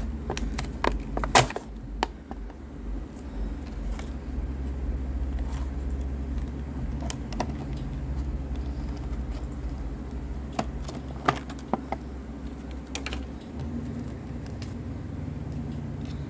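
Stiff clear plastic blister packaging being pried and peeled off a cardboard toy card by hand: scattered crackles and sharp snaps, loudest about a second in and again around eleven seconds, over a steady low hum.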